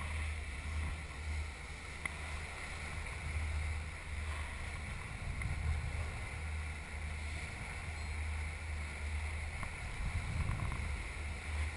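Sportfishing boat running under way: a steady low engine drone under the rushing hiss of wind and churning wake water.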